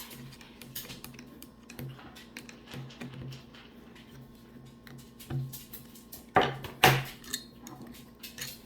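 Small plastic and metal parts of a car's steering-column light switch clicking and clattering as it is taken apart on a work surface, with two louder knocks about six and a half and seven seconds in.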